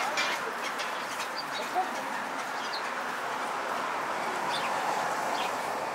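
Busy pedestrian street ambience: a steady murmur of people walking and talking, with a few short high chirps and one sharp click a little under two seconds in.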